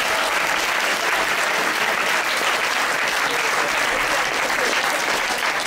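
Large audience clapping steadily in sustained applause.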